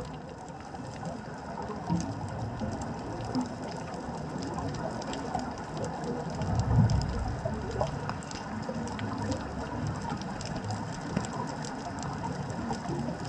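Underwater ambience picked up by a GoPro in its housing on the reef: a steady low rumble with constant faint crackling clicks, and a louder low surge about seven seconds in.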